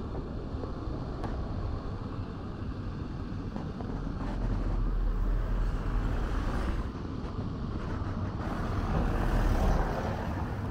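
Street traffic noise: a steady hum of vehicles with a low rumble that swells about four seconds in and again near the end.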